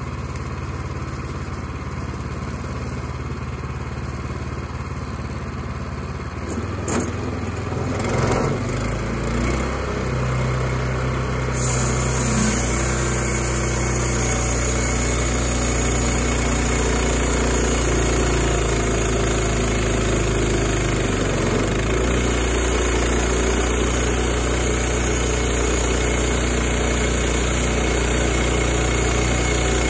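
Gasoline engine of a Wood-Mizer LX25 portable band sawmill running steadily, rising in speed about seven or eight seconds in. From about twelve seconds the sound turns brighter as the band blade cuts through the log while the saw head is pushed along it.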